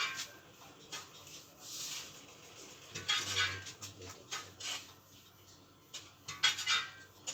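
Irregular light clinks and rattles of small hard objects being handled, in short clusters, with a brief low hum about three seconds in.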